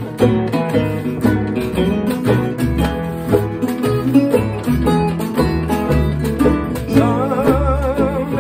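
Small acoustic country band playing an instrumental passage: strummed acoustic guitars and a picked banjo over a stepping bass line, with a washboard keeping rhythm. A wavering melody line comes in near the end.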